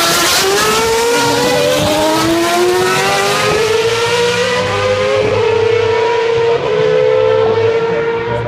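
Historic Formula 1 car's engine revving hard as it accelerates along the straight. The high-pitched note climbs for about five seconds and then holds steady, the sound growing duller as the car draws away.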